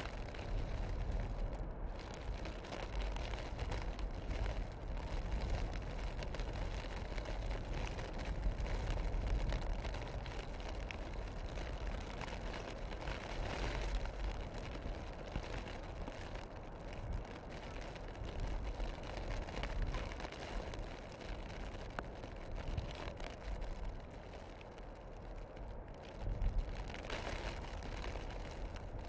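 Wind in a snowstorm gusting through the forest and buffeting the microphone: a steady low rumble with a hiss over it, swelling around the middle and again near the end.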